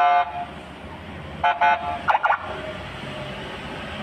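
Short blasts of a police escort car's electronic siren-horn: one near the start and two quick ones about a second and a half in, over the steady rumble of passing traffic.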